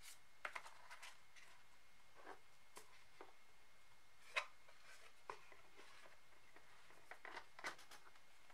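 Light taps and clicks of hands handling a cardboard earbud box and its sleeve while the packaging is put back together: scattered soft knocks, the loudest about four seconds in, and a short run of them near the end.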